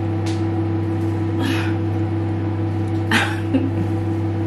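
Microwave oven running with a steady hum, while a baby gives two short squeaky cries, about a second and a half and three seconds in.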